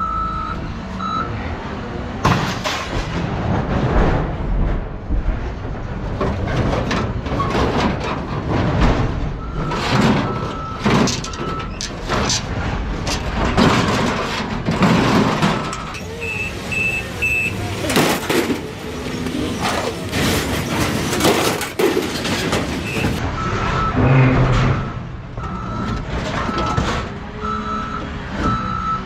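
Scrap metal and junk clattering and banging as it is pulled off a truck bed and dropped, with a vehicle's reversing alarm beeping at times and then steadily near the end.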